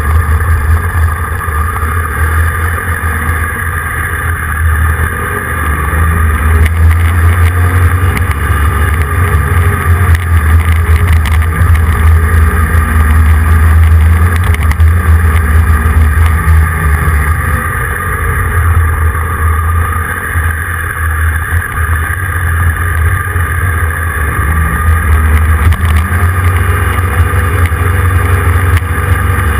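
Steady low rumble of a moving vehicle, heard from a camera mounted on it, swelling and easing slightly in loudness as it goes.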